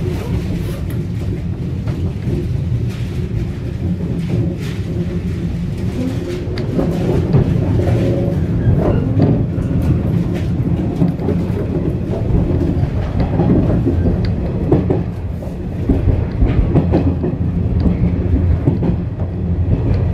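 Rumble of a 415-series electric train's wheels on the rails heard from inside the driving cab, with a faint steady hum, growing louder about seven seconds in as it picks up speed. Scattered clicks from wheels passing over rail joints and points.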